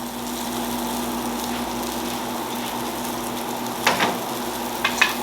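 Green onions sizzling in a hot frying pan, a steady frying hiss. A few sharp clicks come about four seconds in and near the end.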